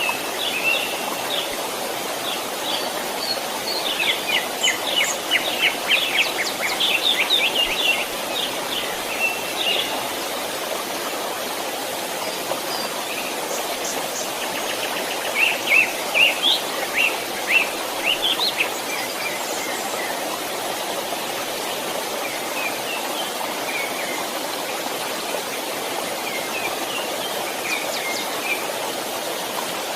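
Steady rushing of a small stream, with songbirds chirping over it in two busy spells, one in the first third and one around the middle, and a few scattered calls near the end.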